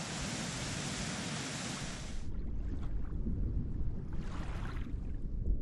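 River water pouring over a small weir, a steady rush; about two seconds in it cuts off abruptly, leaving a duller, low rumble with faint swells of hiss.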